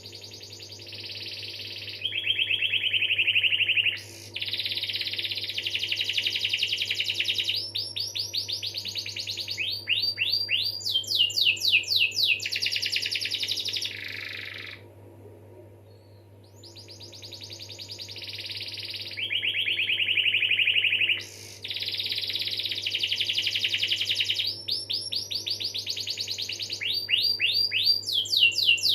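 Domestic canary singing long rolls and trills, with phrases of rapid repeated notes running into one another. The song breaks off for a few seconds about halfway through, then starts again with a similar run of phrases.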